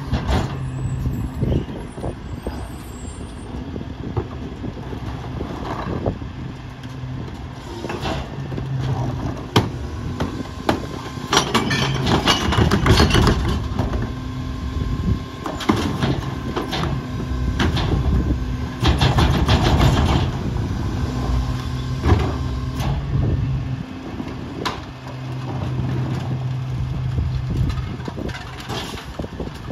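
Freightliner/McNeilus rear-loader garbage truck idling steadily while wheeled carts are tipped into its rear hopper. Loads of trash clatter in, with knocks of the carts against the hopper. The loudest clattering comes about twelve and nineteen seconds in.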